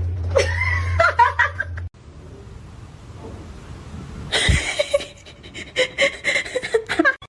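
People laughing in short bursts, over a steady low hum at first; the sound cuts off abruptly about two seconds in, and the laughter returns more densely from about four seconds in.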